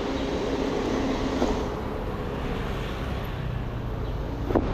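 Street traffic: vehicle engines running and passing, a steady rumble with no speech.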